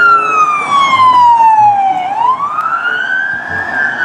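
Emergency vehicle siren in wail mode on a Ford pickup with flashing lights. Its pitch slides slowly down for about two seconds, then climbs back up.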